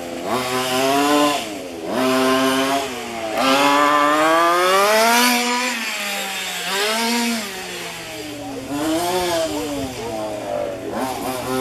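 Small two-stroke petrol engine of a 1:5-scale FG RC car, revving up and down again and again as the car accelerates and slows through corners. The loudest, highest climb is about halfway through.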